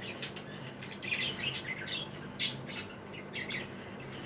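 Small birds chirping in quick, short, high calls, with one sharp click about halfway through.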